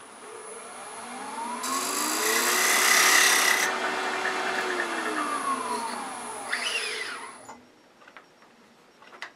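Wood lathe motor winding up to speed with a rising whine, running briefly, then winding down to a stop about seven and a half seconds in. From about two to four seconds in, a short hiss sits on top, from a tool cutting the spinning wooden tenon.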